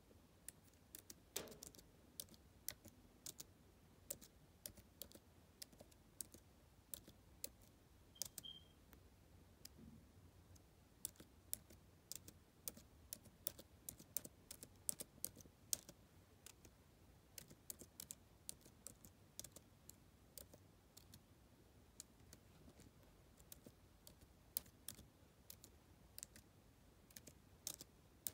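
Typing on a computer keyboard: irregular runs of quiet key clicks with short pauses between words.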